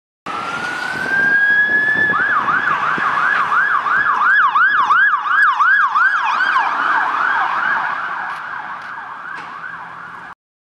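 Police car's electronic siren: a rising wail for about two seconds, then switching to a fast yelp of about three sweeps a second. It fades gradually as the car moves away and cuts off suddenly near the end.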